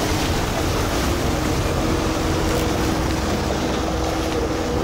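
Vaporetto water bus under way: its engine running with a steady hum over the rush of water and wind.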